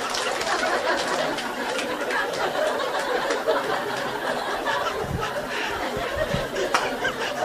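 Audience laughing and chattering together, many voices overlapping in a steady mix of giggles and murmured talk.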